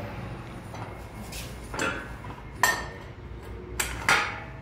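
Steel parts of a multi-station home gym's weight stack, its chrome guide rods and a plate on them, clanking against each other as they are handled and set on the base frame. About five sharp metallic clanks, the two loudest a little past halfway and near the end.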